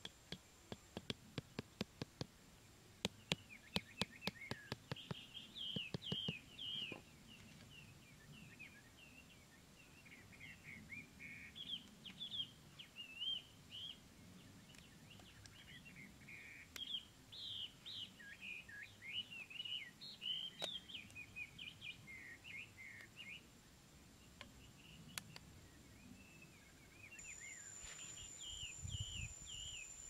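Sharp knocks, about two a second for the first seven seconds, as a bamboo stake is tapped into the ground with a knife. Small birds chirp and twitter on and off through the rest.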